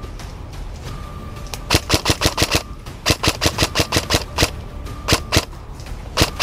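M4-style airsoft electric rifle firing in several quick full-auto bursts, about nine shots a second, the longest lasting just over a second.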